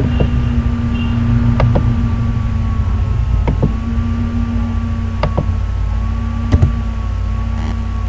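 Steady background hum with a constant low tone and a fainter wavering whine. Over it come a few sharp computer-mouse clicks, mostly in quick pairs, as a command is copied, right-click pasted and run.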